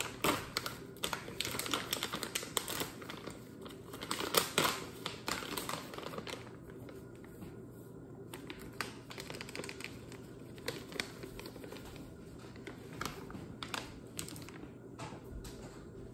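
Crinkling and rustling of a plastic bag of gluten-free flour as it is opened and flour is poured from it into a glass measuring cup. The crackles are dense for about the first six seconds, then sparser.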